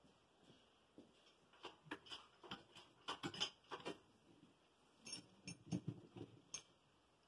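Faint, irregular clicking and clinking of a chain hoist's chain as it works with a cylinder head hanging from it, in two clusters of quick clicks.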